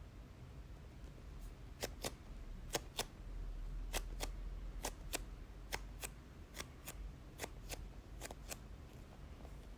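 Light, sharp clicks from handling a squishy toy, mostly in quick pairs about once a second.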